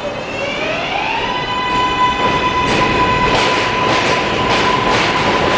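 New York City subway train running past, its motor whine rising in pitch over about a second and then holding steady, with the wheels clicking over rail joints.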